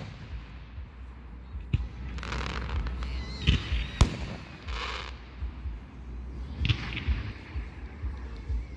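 Aerial firework shells bursting: sharp booms, the loudest about four seconds in and others a couple of seconds before and after, with short rushes of hiss and crackle between them.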